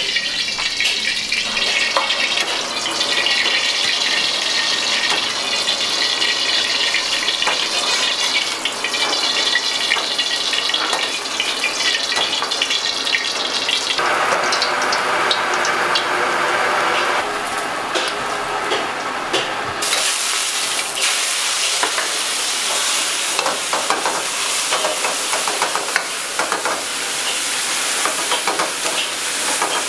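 Stir-frying in a hot wok: oil sizzling steadily, with frequent clicks and knocks of the spatula against the wok. The sound changes abruptly about 14 seconds in and again about 20 seconds in.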